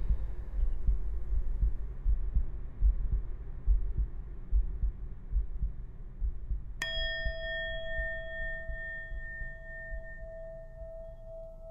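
A low, uneven pulsing rumble that slowly fades. About two-thirds of the way through, a single metal strike rings out as a sustained bell-like tone with several high overtones, the lowest note wavering slowly as it rings.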